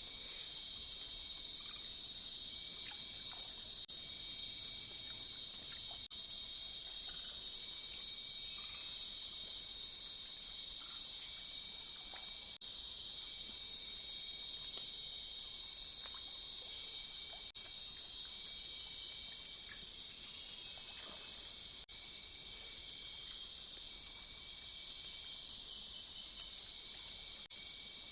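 Steady high-pitched nature ambience: a dense shrill chorus that pulses a few times a second, with faint short higher notes through it.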